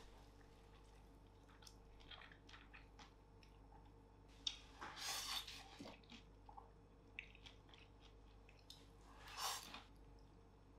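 Crisp deep-fried battered chicken and roasted potato wedges crackling softly as they are torn apart and handled by hand, with two louder crunchy rustles about five and nine and a half seconds in.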